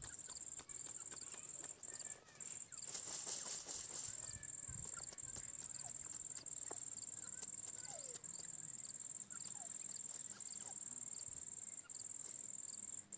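A cricket trilling steadily on one high pitch, broken by short pauses every second or two. Faint short chirps sit underneath, and there is a brief rustle about three seconds in.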